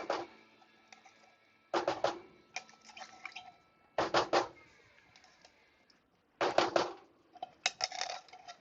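Cream of chicken soup being emptied out of its can: short bursts of knocks and scraping about every one to two seconds as the can is tapped and scraped clean.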